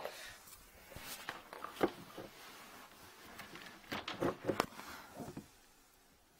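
Scattered light knocks, clicks and rustling as a worker handles tools and shifts about, with a cluster of knocks about four seconds in.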